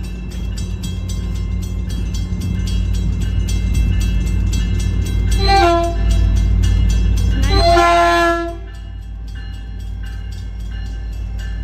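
Caltrain diesel locomotive 921 passing with a steady engine rumble while the crossing bell rings rapidly. The train's horn sounds twice: a short blast about five and a half seconds in, then a longer, louder blast just before eight seconds.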